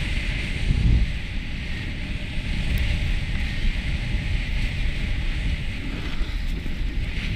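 Wind buffeting the microphone of a helmet-mounted camera during a fast ski run, a heavy low rumble, with the hiss of skis sliding over packed snow swelling and fading.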